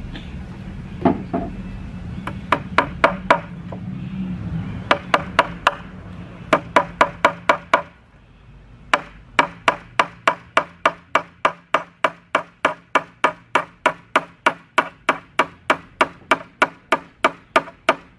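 Hammer driving finishing nails into a wooden board: sharp, ringing taps in short bursts of four to six, then a steady run of about two blows a second from about nine seconds in.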